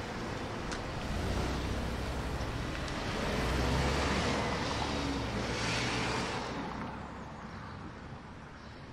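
Cars driving off down a road: engine and tyre noise that swells as they pass, loudest a little past the middle, then fades away.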